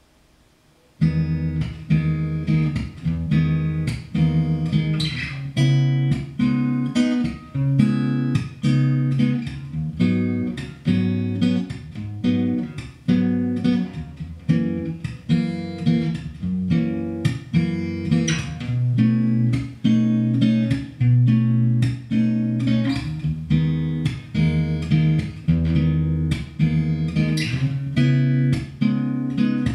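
Steel-string acoustic guitar fingerpicked solo, playing an instrumental tune with a steady bass line under plucked melody notes. It starts about a second in after near silence.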